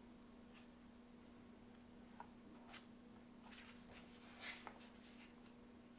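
Faint paper rustles as the pages of a hardcover picture book are opened and turned, a few soft swishes between about two and five seconds in, over a low steady hum.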